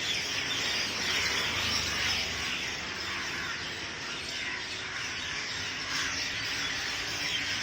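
A dense chorus of many birds chirping together without a break, the calls overlapping into one continuous din: a flock gathered in a roost tree at dusk, calling while it settles for the night.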